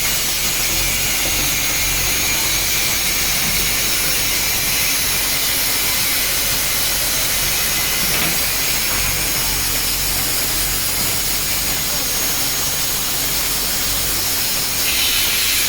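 JCB 3DX backhoe loader's diesel engine running steadily under a heavy, even hiss.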